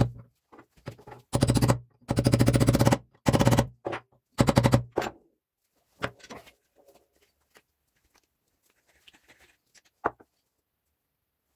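Bevel gears in the open gearbox of a hand breast drill spun by hand, the teeth meshing in a fast buzzing rattle, in four short bursts over the first five seconds, then a few fainter clicks and a single knock.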